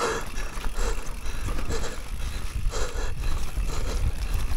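Downhill mountain bike riding fast down a rooty, leaf-covered forest trail: tyres rolling over dirt and leaves, with short knocks and rattles as the bike hits bumps, and low wind rumble on the action camera's microphone.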